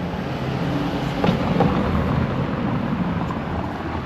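Low, steady rumble of a passing vehicle, swelling a little through the middle and easing off near the end.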